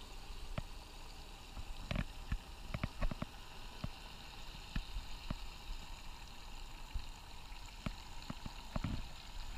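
Water running from a hose into a Wubble bubble ball packed with water balloons, gurgling and bubbling with scattered small clicks and pops as it fills.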